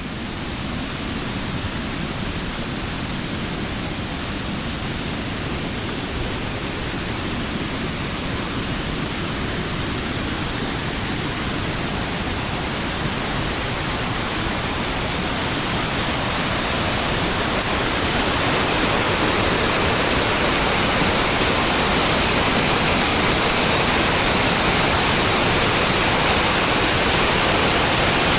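Dray Nur waterfall's heavy falling water, a steady rushing noise that grows slowly louder.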